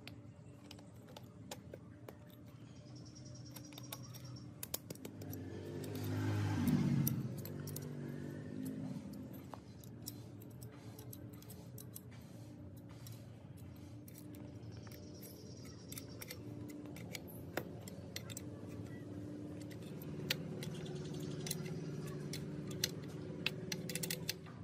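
Light metallic clinks and taps of nuts, bolts, a spanner and pliers against steel clamp plates and tubes as they are bolted together. About six seconds in, a louder swell falling in pitch rises over them briefly.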